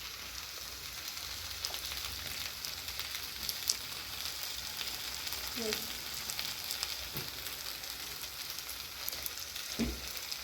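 Pot of freshly cooked pilau rice sizzling steadily on the heat, a fine crackling hiss, with a few soft knocks in the second half.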